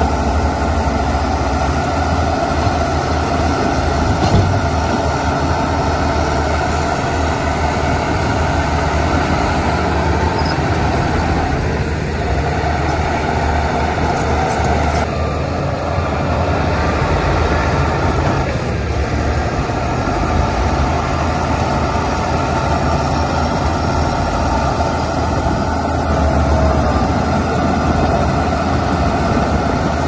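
Heavy diesel earthmoving machinery running steadily, a continuous deep engine drone that barely changes.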